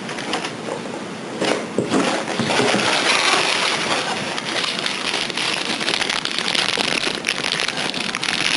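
Plastic packaging crinkling and rustling as an iPhone case is handled and unwrapped, a dense crackle that builds about a second and a half in and keeps going.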